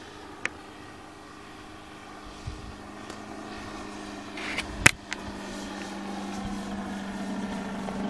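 The nose propeller engine of an SF 33 motor glider in flight, a steady hum that slowly grows louder as the plane comes closer. A sharp click comes about half a second in, and a louder one about five seconds in.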